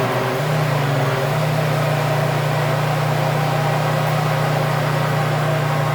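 Countertop blender running, churning a liquid mixture of water, sugar and rum. Its motor hum steps up in pitch twice in the first second and a half, then runs steady and loud.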